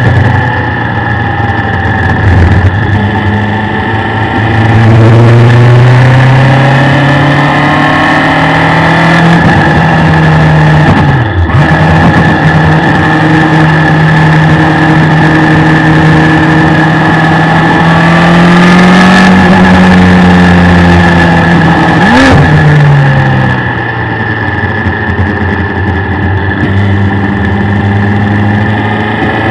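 Onboard sound of a race car's Suzuki Hayabusa 1300 inline-four motorcycle engine under way. The engine note climbs and falls in pitch with throttle, and there are sudden breaks in the note at about 11 and 22 seconds.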